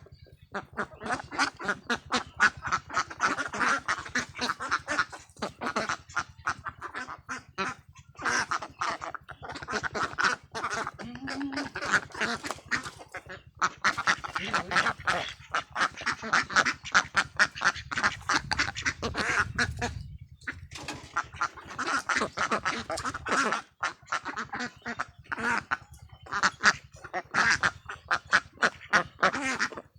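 A large flock of Khaki Campbell ducks quacking continuously, many calls overlapping in a dense chatter, with a few brief lulls.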